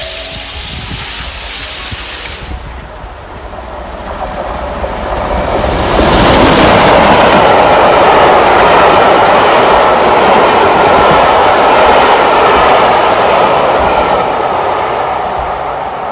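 Steam-hauled passenger train passing close by, drawn by a Bulleid West Country class locomotive. The noise builds to a loud rush about six seconds in as the engine goes past, then the coaches run by and the sound slowly fades as the train draws away.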